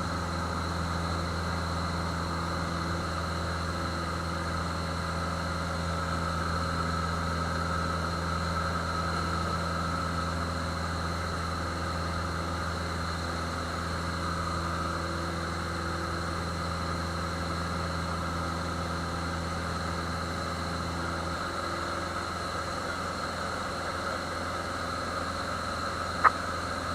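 Cessna 150F's Continental O-200 four-cylinder engine running steadily as a constant drone. About 21 seconds in the engine note changes slightly, as one lower tone drops away, and a single sharp click comes near the end.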